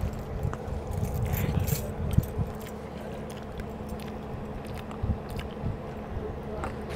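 Close-up eating sounds: fingers mixing and squishing wet rice on the plates and mouths chewing, with scattered small clicks and low thumps, one sharper knock about two seconds in. A faint steady hum runs underneath.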